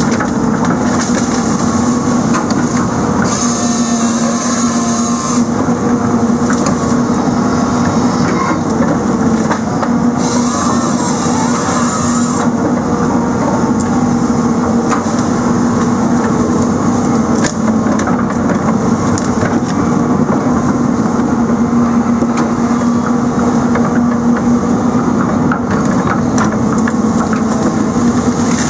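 A heavy machine's engine and hydraulics run steadily and loudly under load as a hydraulic grapple saw works logs. Its chain saw cuts twice, about three seconds in and again about ten seconds in, each cut lasting roughly two seconds, with woody crunching and cracking throughout.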